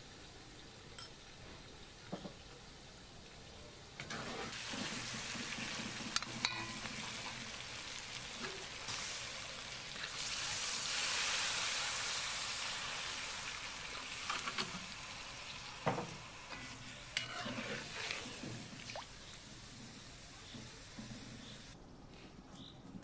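Meat and onions frying in a large metal pot, sizzling, with scattered knocks of a metal skimmer against the pot. Around the middle, water poured in from a kettle meets the hot pot in a loud rushing hiss that swells and then eases off.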